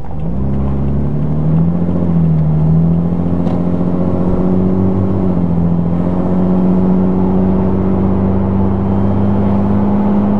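Supercharged 2008 Toyota Hilux TRD's 1GR-FE V6 engine pulling under load on a test drive; the note climbs a little, dips briefly about five seconds in at a gear change, then holds steady.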